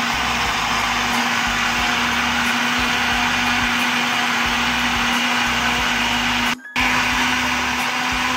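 Russell Hobbs countertop jug blender running steadily at speed with a constant motor hum, whipping yogurt, water and sugar into frothy lassi. The sound breaks off for a split second about two-thirds of the way through, then carries on.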